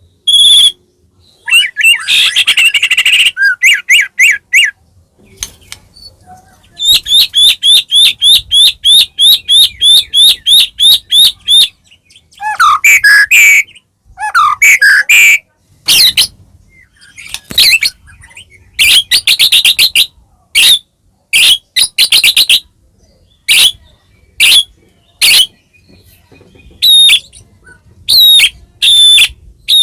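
White-rumped shama (murai batu) singing loudly in varied phrases with pauses between them: chattering notes, a long run of quick repeated notes at about four or five a second, and sharp sweeping whistles.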